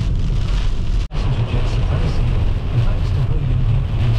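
Torrential rain beating on a car's roof and windscreen, heard from inside the cabin over a heavy, steady rumble of road and wind noise as the car drives through a thunderstorm's core. The sound cuts out for an instant about a second in.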